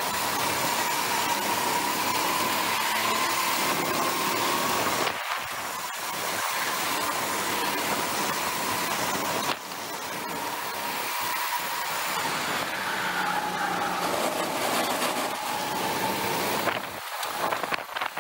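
Go-kart running at speed around a track, its motor note wavering up and down as it goes through the corners, with heavy wind noise on the kart-mounted microphone. The sound briefly drops twice.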